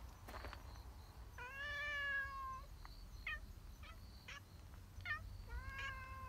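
Cats meowing: one long, drawn-out meow about a second and a half in, a few short chirps in between, and another long meow starting near the end.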